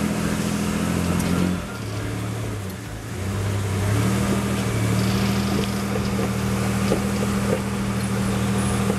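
Full-size Ford 4x4's engine running under throttle as the truck crawls up a rock ledge. It eases off about a second and a half in, picks up again about three to four seconds in, and then holds steady.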